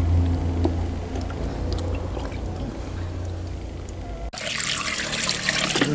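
Pig's blood being scooped with a mug from the opened carcass and poured into a bucket, trickling and splashing, over a low rumble. About four seconds in, a louder hissing splash of poured liquid takes over.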